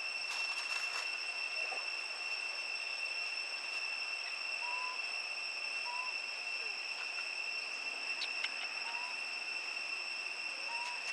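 Steady, high-pitched insect drone, typical of a cricket, with four short, faint rising chirps and a few faint clicks.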